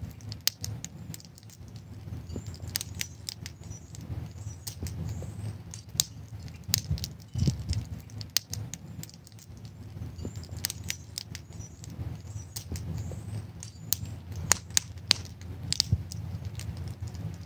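Wood fire crackling in a stone fire pit, with sharp irregular pops and snaps.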